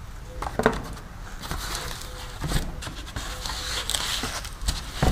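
Packaging being handled while a box is unpacked: scattered knocks and clicks with scraping and crinkling of packing material.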